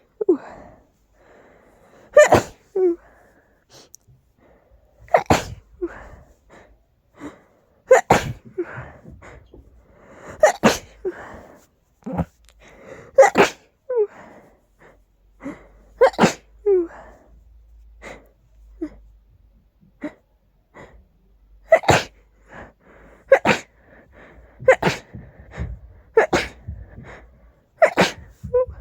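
A person sneezing over and over: about ten loud sneezes a few seconds apart, let out fully to relieve a strong tickle in the nose.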